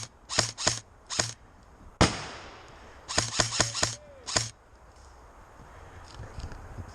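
Airsoft guns firing single shots: three shots in the first second or so, a sharper, louder crack at about two seconds, then a quick string of about six shots between three and four and a half seconds in.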